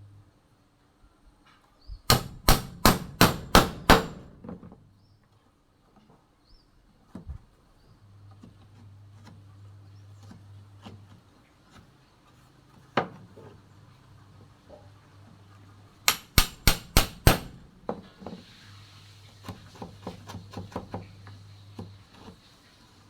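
Hammer striking a wood chisel to square the sides of a mortise in a window frame. It comes in two quick runs of six or seven blows, one lone blow between them, and lighter taps near the end.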